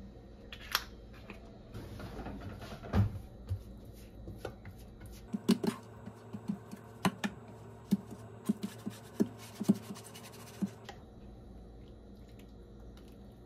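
A silicone brush spreading oil over a metal baking pan, a quick run of light taps and knocks against the pan that stops about eleven seconds in. Before it come a few clicks and one louder thump about three seconds in.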